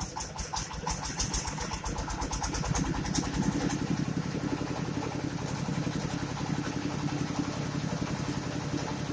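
Engine of a mobile rice milling machine running with a fast, even beat. About three seconds in it picks up and grows louder and fuller as the mill and its blower come up to speed, filling the long discharge hose with air.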